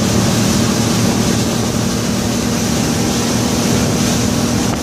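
Twin 2006 Yamaha 250 four-stroke outboards running steadily at high speed, around 4,400–4,600 rpm, a constant engine drone over a continuous rush of wind and water.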